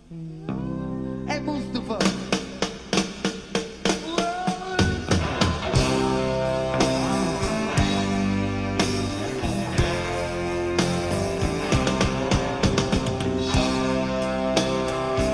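Live rock band playing: electric guitar with a run of sharp drum hits, then the full band with bass comes in about five seconds in.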